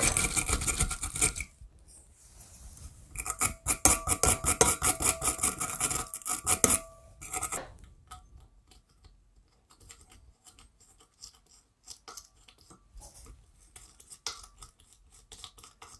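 Wire fitting brush, the kind used to clean copper pipe for sweating, scrubbed rapidly back and forth on the lamp's metal pipe to scour off adhesive: fast scratching strokes in two stretches. From about eight seconds in, faint clicks and scrapes as the brass socket cap is fitted onto the pipe.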